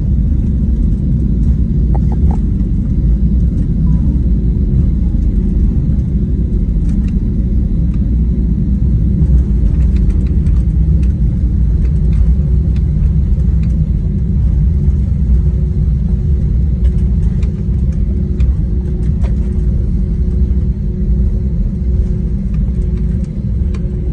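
Steady low rumble inside an airliner cabin while taxiing after landing: the jet engines at idle and the wheels rolling over the taxiway, with a faint steady hum above the rumble.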